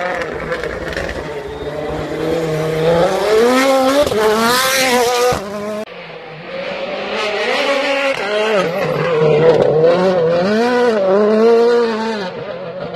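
Rally cars' turbocharged engines revving hard, the pitch climbing and dropping again and again with throttle and gear changes. An abrupt cut about six seconds in splits it into two passes.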